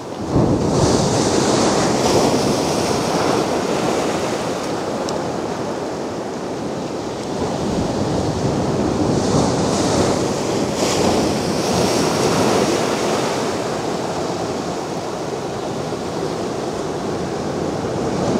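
Mediterranean sea waves breaking and washing up the beach, with a steady rush. Two bigger surges come with a hiss of foam, one about a second in and another around ten seconds in.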